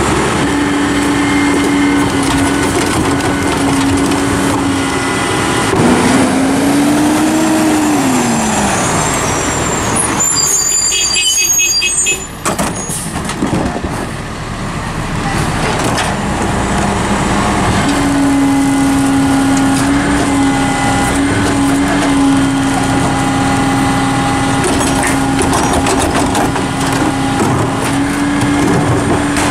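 Hino rear-loader garbage truck with a small New Way body, its engine and hydraulics working the rear cart tipper and packer: a steady, high-pitched whine. The pitch swells and drops once about six seconds in, breaks off briefly around eleven seconds, and returns steady from about eighteen seconds, falling away at the very end.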